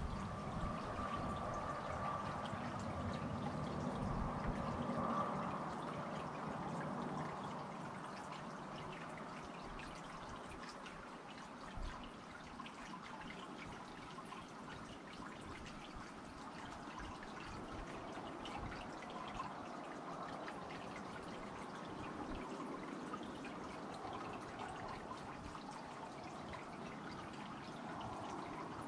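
Small tiered garden fountain trickling and splashing steadily, with a low rumble during the first few seconds.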